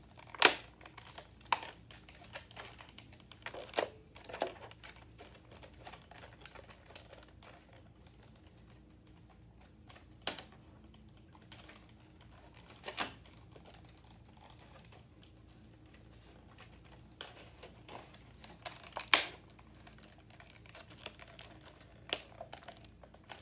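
Packaging being opened and handled by hand: scattered sharp clicks and knocks, with faint scraping and rustling between. The loudest knocks come about half a second in and near nineteen seconds.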